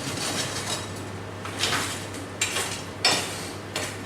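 Steel leaf-spring stock clanking against a bending pipe and tools as it is worked: about five irregular metal clanks and clinks with short ringing tails, over a low steady hum.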